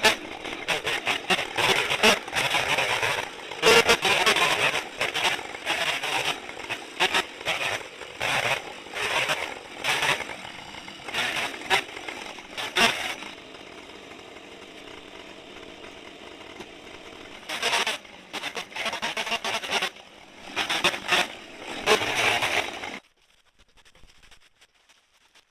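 Husqvarna 550 XP chainsaw cutting in short, irregular bursts of high revs, with a steadier quieter idle stretch in the middle, then shut off about 23 seconds in.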